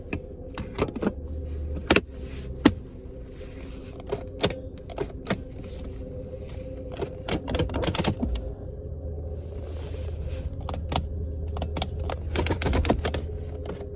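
Scattered clicks and knocks of hard plastic parts being handled and fitted as a Jeep Liberty's gear-shifter trim is put back together, over a steady low hum.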